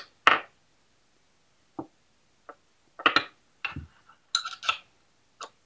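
Metal parts of a pan-and-tilt head being handled and fitted together on a workbench: a scatter of short, sharp clinks and knocks at irregular intervals, a few with a brief metallic ring.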